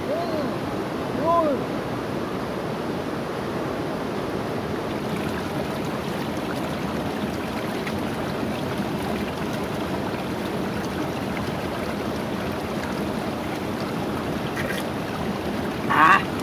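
Steady rushing of a shallow, rocky river running over stones. Near the start come two short hummed 'mm' sounds from someone eating, and near the end there is one brief splash, the loudest moment.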